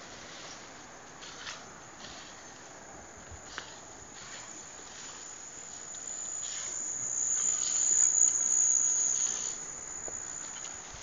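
A high, shrill insect buzz, steady in pitch, swelling to its loudest about eight seconds in and then fading again.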